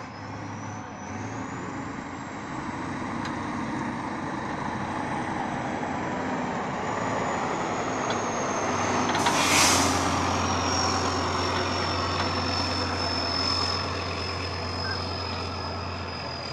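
Tatra 815 trial truck's diesel engine working hard under load as it drives past, louder toward the middle and fading after, with a high whistle that rises over the first few seconds and then slowly falls. A short, loud hiss about halfway through is the loudest moment.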